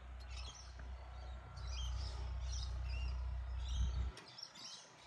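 Small birds chirping repeatedly in the background, over a low rumble that stops abruptly about four seconds in.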